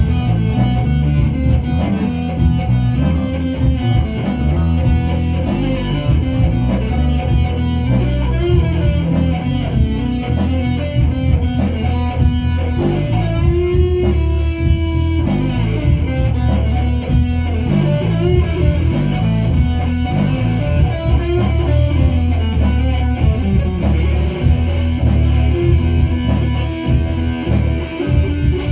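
Electric guitar and bass guitar playing together as an instrumental jam, with strong low bass notes under the guitar.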